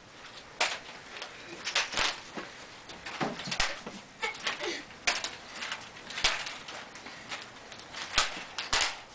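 Irregular light clicks and knocks, about a dozen spread unevenly, from small children handling plastic Easter eggs and a basket, with a few faint child vocal sounds in between.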